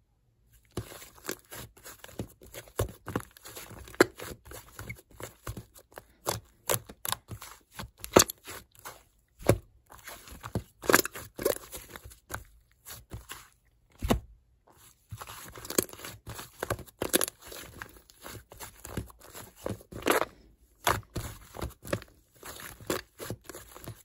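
Fluffy white clay slime being squished and stretched by hand, with a rapid, irregular string of small pops and crackles from air caught in it.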